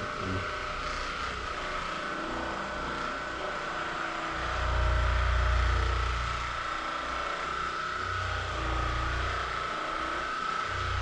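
A steady motor hum with a high whine. A deep rumble swells about four seconds in and again around eight seconds.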